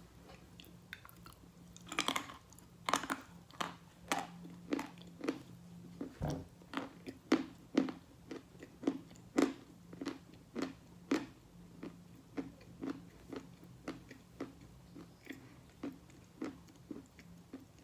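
Close-up chewing of soaked chalk: a steady run of short wet crunches about twice a second, loudest a couple of seconds in, as the chalk breaks down into a soft paste.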